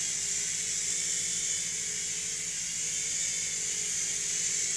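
Small electric RC helicopter's motors and rotor blades whirring steadily in flight, the motor tone wavering slightly with the throttle.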